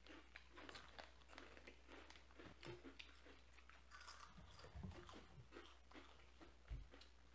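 Faint, irregular crunching and chewing of Flamin' Hot Cheetos, many small crunches as the puffs are bitten and chewed.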